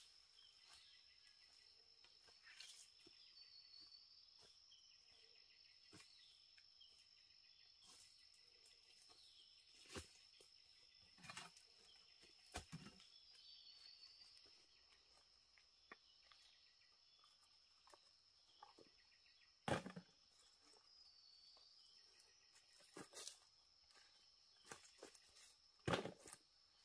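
Faint steady high-pitched insect drone, with occasional scattered knocks and snaps, the loudest about two-thirds of the way through and again near the end.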